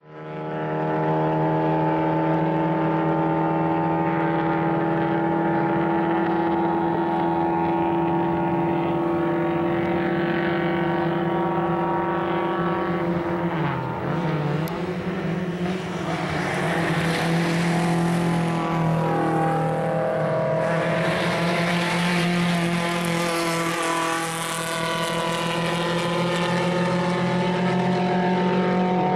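Car engine running steadily at a constant speed, with a brief dip in the engine note about halfway through and a slight change of pitch soon after, along with rising road and wind noise.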